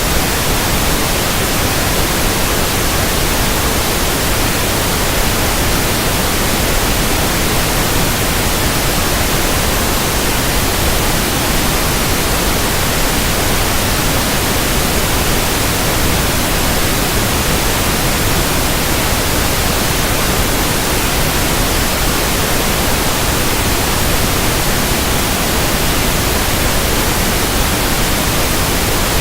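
Pink noise speaker test signal: a steady, even hiss spread from the lowest to the highest pitches at a constant level.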